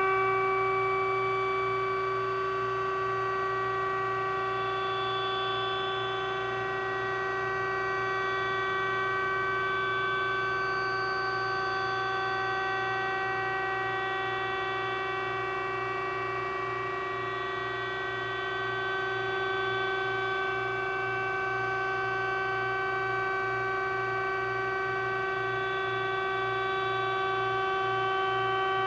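Electric hydraulic power unit of a 20,000 lb Zwack F-20 upender running under load as the table tilts up: a steady whining hum that holds an even pitch and level.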